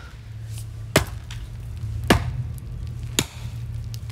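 A pick striking hard, compacted dirt three times, about a second apart.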